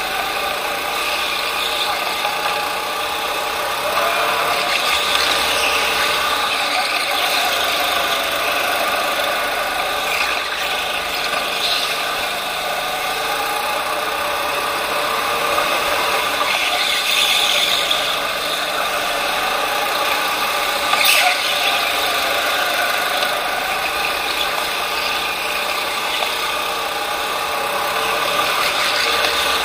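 Racing go-kart running at speed through the corners of an indoor track, its engine drone steady with rattling from the kart. A brief sharp knock about two-thirds of the way in.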